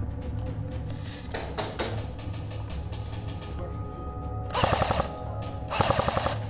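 Background music with a steady bed, cut through twice near the end by short bursts of rapid full-auto fire from an airsoft electric gun, a fast run of sharp clicks each time.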